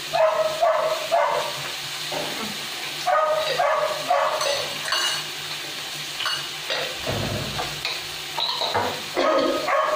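Oil sizzling steadily in a pan as ginger-garlic paste and chopped green chillies fry. Over it, a dog barks in short bursts, in several clusters.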